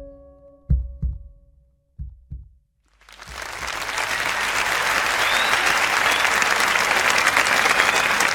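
The song's last few low beats and held tones die away. About three seconds in, a studio audience breaks into applause that swells and keeps going.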